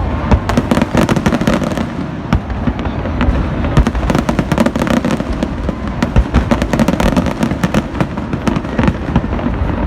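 Fireworks display going off without a break: many overlapping bangs and crackles over a steady low rumble.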